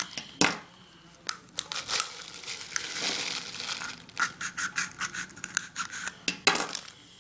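A knife cutting a slit into a plastic ping pong ball: irregular scratching and crinkling with sharp clicks, the loudest about half a second in and near the end.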